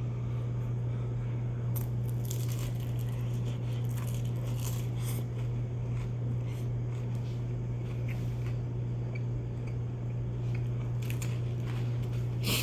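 A person chewing and biting food close to the microphone, with scattered crunches and small crackles, over a steady low hum.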